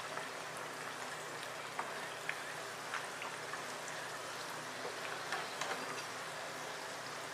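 Vegetable rolls deep-frying in hot oil in a kadai: a steady sizzling hiss with many small scattered pops and crackles.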